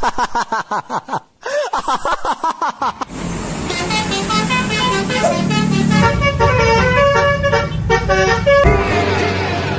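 Multi-tone bus telolet horn playing a tune of short stepped notes over a steady low engine drone, after a few seconds of rapid warbling tones.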